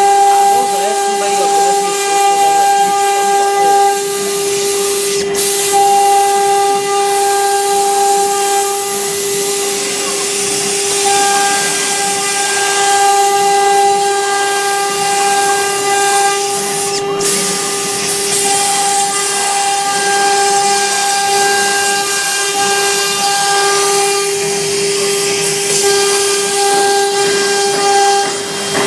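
CNC router spindle running with a steady high whine over a constant hiss, as it cuts MDF. Two sharp clicks, about 5 and 17 seconds in.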